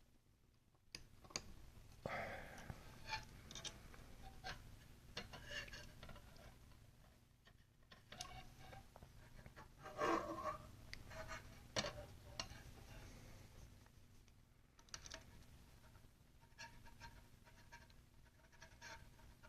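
Faint scattered clicks and scratching of small metal parts being handled on a folding pocket knife as its screws are driven in and tightened, a little louder about halfway through.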